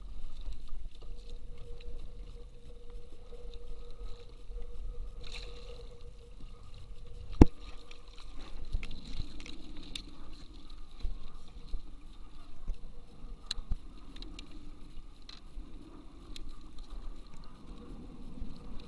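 Handling sounds on a plastic fishing kayak: scattered light clicks and knocks on the hull as a landed porgy and the rig are handled, over water lapping and a low rumble. One sharp knock comes about seven seconds in.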